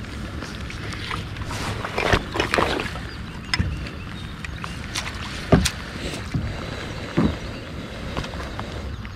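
A hooked smallmouth bass splashing and thrashing at the surface beside a kayak as it is brought to the boat: several short, sharp splashes, the loudest about five and a half seconds in, over a steady low rumble.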